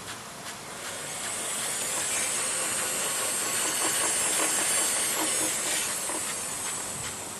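A vehicle passing by: a hiss with a faint high whine that swells over a few seconds, peaks in the middle and fades away.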